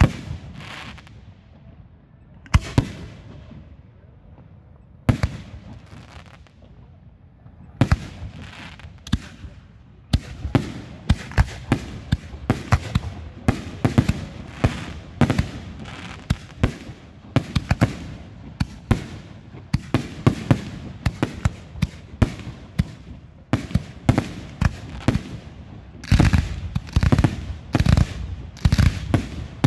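Aerial fireworks shells launching and bursting overhead, heard close to the firing site: single bangs a couple of seconds apart at first, then from about ten seconds in a rapid run of many bangs, thickening into a dense, continuous barrage near the end.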